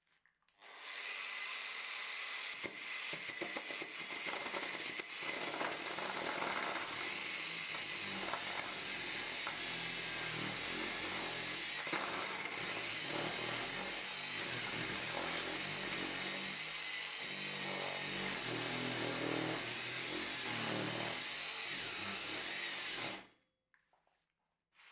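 Angle grinder fitted with a cylindrical hole-cutting attachment running and boring into a block of wood: a steady high whine over the uneven grinding of the cutter in the wood. It starts just under a second in and cuts off near the end.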